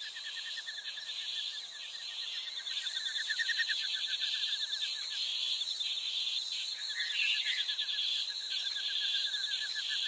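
Dense chorus of calling insects: a continuous high shrill buzz under a rapid, pulsing mid-pitched trill that drops out for about a second and a half midway, with a short chirp around seven seconds in.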